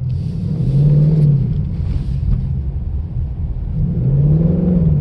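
2018 Ford Mustang GT's 5.0-litre V8 running over a steady low rumble, its pitch rising and falling twice as the car picks up speed and eases off.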